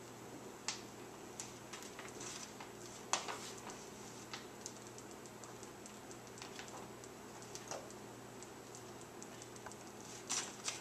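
Light, irregular clicks and taps of a plastic spoon scooping sausage crumbles from a container and knocking them into an electric mini omelet maker's egg-filled sections, over a low steady hum. The sharpest tap comes about three seconds in, with a quick pair of taps near the end.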